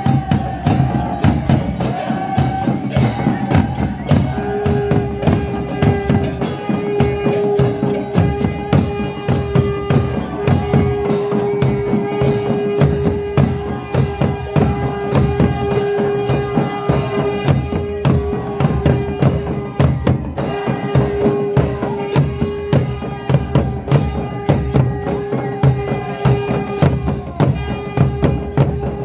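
Music with fast, steady hand percussion, a long held note coming in about four seconds in, and a wavering melody above it.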